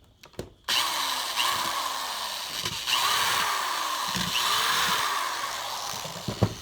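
A power tool running loudly for about six seconds, switching on abruptly just under a second in and stopping near the end, its pitch wavering slightly.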